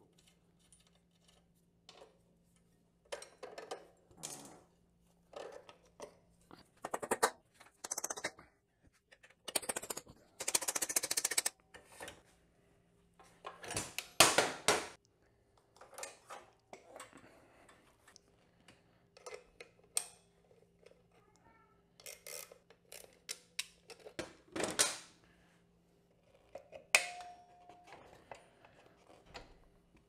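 Irregular metallic clinks and rattles of hand tools and motorcycle parts as a Kawasaki KD175's rear wheel comes off: the brake stay arm is worked loose, the drive chain is handled at the rear sprocket, and the drum brake panel is pulled from the hub. A faint steady hum runs underneath.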